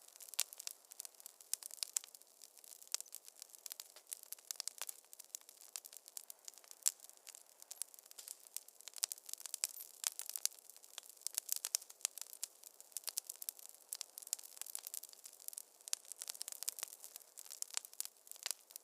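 Wood fire crackling in a fireplace: dense, irregular snaps and pops over a faint hiss, with no low rumble.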